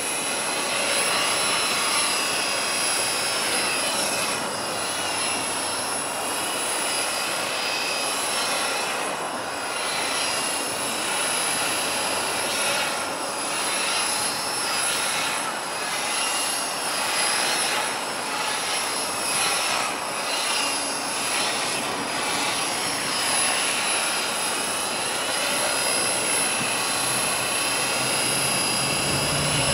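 Radio-controlled model helicopter hovering and turning slow pirouettes: a steady whine of the motor and spinning rotor blades whose pitch slowly drifts up and down.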